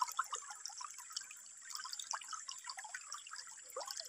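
Shallow stream trickling and gurgling over rocks, with small splashes as a hand feels around under the water.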